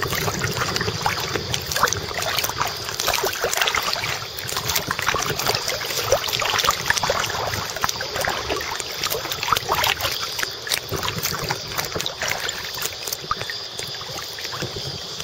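Choppy sea water lapping and splashing right at a microphone held at the surface, a continuous patter of small slaps and trickles.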